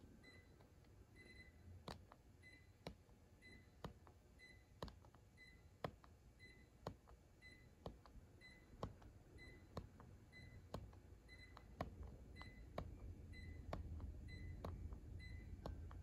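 Buttons of a Hitachi air conditioner remote control pressed about once a second, each press a faint sharp click, as the set temperature is stepped down. A short high electronic beep repeats about every 0.7 s alongside.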